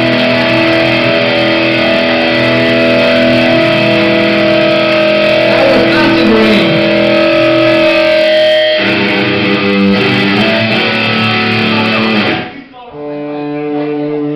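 Live rock band playing loud, distorted electric guitars over bass, with a falling pitch sweep about six seconds in. The music cuts off abruptly near the end and a thinner guitar passage starts.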